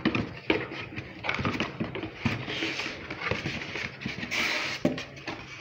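A cardboard box being opened by hand: flaps rustling and scraping, with many sharp taps and crackles of cardboard and a longer scraping rustle a little past halfway, as hands reach the polystyrene packing inside.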